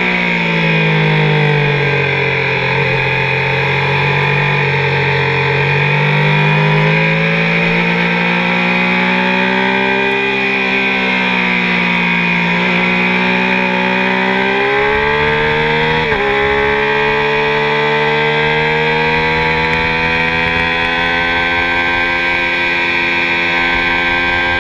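Onboard engine sound of a Triumph three-cylinder sportbike ridden hard on a racetrack. The revs fall at the start as it slows for a corner and stay low for a few seconds, then climb and dip again. A quick gear change comes about two-thirds of the way through, followed by a long pull with steadily rising pitch.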